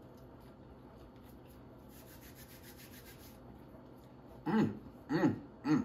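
Faint rustling and crackling while eating fries, then near the end three short vocal sounds from a man, each with a rising and falling pitch.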